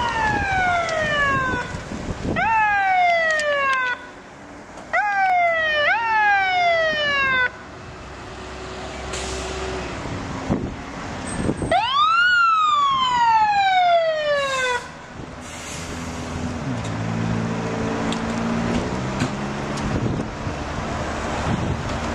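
Emergency vehicle siren sounding in repeated sweeps, each rising sharply and then falling over a second or two, with one longer sweep about halfway through. Lower steady droning follows near the end.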